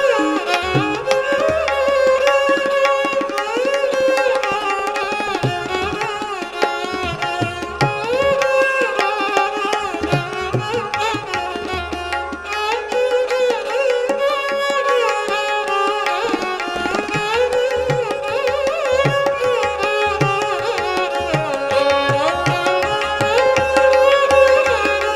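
Instrumental interlude: a bowed Indian string instrument plays a gliding melody over tabla accompaniment. The deep bass drum of the tabla swells in long, sustained strokes twice, a couple of seconds in and about halfway through.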